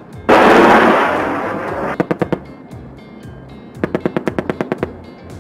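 A loud blast that dies away over about a second and a half, then two bursts from an AH-64 Apache's 30 mm chain gun firing about ten rounds a second: a short burst about two seconds in and a longer one of around a dozen rounds near the end.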